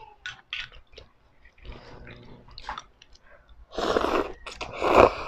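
Wet chewing and lip smacks of someone eating ramen noodles, then two loud slurps of noodles in the last second and a half.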